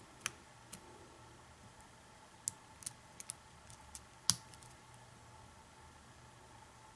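Light, irregular metallic clicks and ticks of a hook pick and pry-bar tension tool working in the keyway of an American 700 series padlock clamped in a vise. There are about eight clicks, the sharpest a little past four seconds in.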